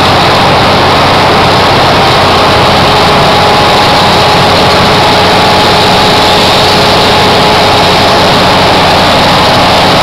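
Wirtgen asphalt milling machine working close by: its heavy diesel engine and cutting drum make a loud, steady, unchanging din.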